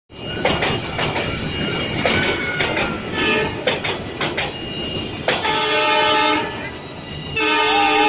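Passenger coaches rolling slowly over the level crossing, wheels clacking over the rail joints with a faint squeal. A WDM-3A diesel locomotive's horn then honks: a blast of about a second some five seconds in, and a louder, longer blast starting near the end.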